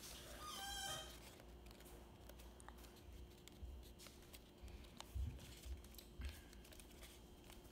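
Faint crinkling and clicking of folded paper as it is pinched and pressed together, with a few soft knocks. A brief faint warbling sound comes just under a second in.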